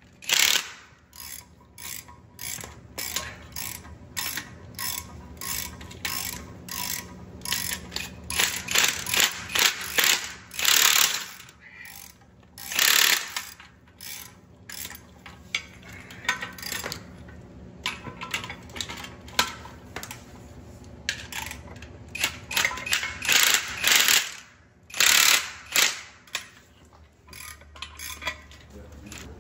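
Cordless impact wrench hammering in many short bursts, with a few longer runs, as it drives the bolts that fasten a brake rotor to its wheel hub.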